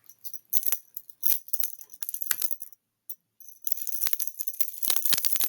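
A rapid clatter of small hard clinks and rattles, like coins or other small metal pieces being shaken or spilled. It comes in two bursts with a brief pause about three seconds in, the second burst denser and louder.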